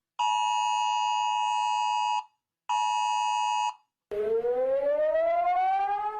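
Emergency alert tones: a steady two-tone alert tone sounds for about two seconds, breaks off briefly, and sounds again for about a second. After a short silence a siren starts, rising slowly in pitch.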